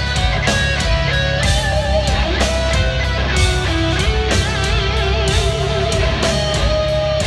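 Live instrumental progressive metal band playing: electric guitar melody lines, some notes bent and wavering with vibrato in the middle, over heavy low guitar and bass and drums with regular cymbal and drum hits. The guitars are eight-string electric guitars.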